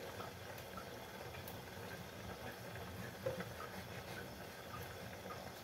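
Faint kitchen sounds: a low steady hiss with a few soft scattered clicks of a knife slicing tomatoes.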